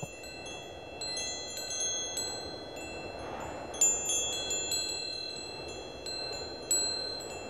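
Wind chimes ringing: clear high notes struck at uneven moments, several at once, each left to ring on for seconds, over a soft steady rushing noise.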